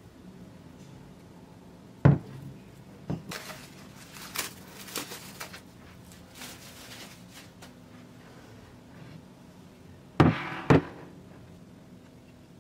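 Glass knocking on a table about two seconds in, then plastic cling film crinkling as it is peeled off a glass bowl of risen dough. Near the end, two sharp knocks of glass set down on the table, a fraction of a second apart.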